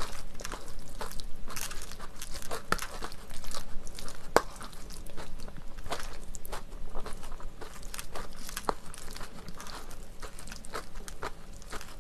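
Close-miked eating of jjajang rice mixed with chopped fresh green chili: chewing with many short, irregular crisp clicks, along with a wooden spoon scraping and scooping in the bowl.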